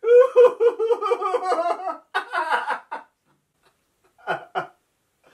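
A man and a woman laughing together in a deliberate laughter exercise: a long, high-pitched peal of laughter for about three seconds, a short pause, then two brief chuckles.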